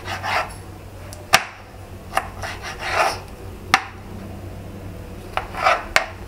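Repeated scraping strokes in food preparation, a few short ones near the start, a cluster around the middle and one near the end, with three sharp clicks between them.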